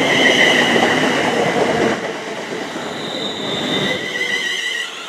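Class 350 electric multiple unit arriving at a platform: the rumble of the train with steady high-pitched squealing from the wheels or brakes, the squeal jumping higher about three seconds in.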